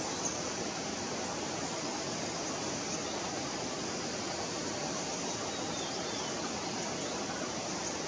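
Steady, even rushing hiss of forest ambience, with a few faint high bird chirps and one short falling call over it.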